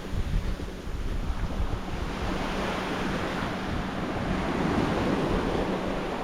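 Small waves washing onto a sandy beach, with wind buffeting the microphone and a faint steady hum underneath.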